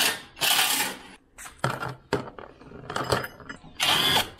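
Hand tools clinking and scraping against metal on a car's underside, in short irregular knocks, with a few louder rustling scrapes about half a second in and near the end.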